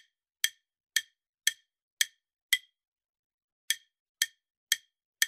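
Countdown-timer ticking sound effect: sharp wooden clock-like ticks about two a second, with one pause of about a second midway.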